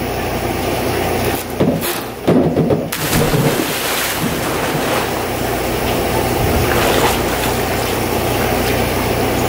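A person plunging into a swimming pool about two seconds in, then water splashing and sloshing as he swims, over a steady rushing background noise.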